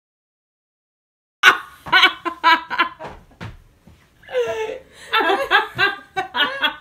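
A young woman laughing loudly and helplessly in two long runs of rapid bursts. It begins after about a second and a half of dead silence.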